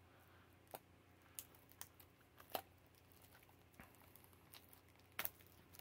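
Near silence broken by about six faint, sharp clicks, of a trading card and a magnetic card holder being handled, the loudest about halfway and near the end.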